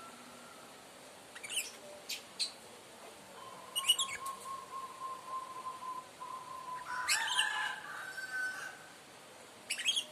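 Lovebird chirping: scattered sharp high chirps, a long steady whistled note lasting about three seconds partway through, and a louder cluster of chirps and calls around seven seconds in.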